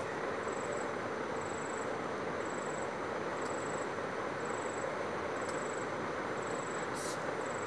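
Steady background hiss, with a faint high-pitched chirp repeating about once a second and a few soft ticks.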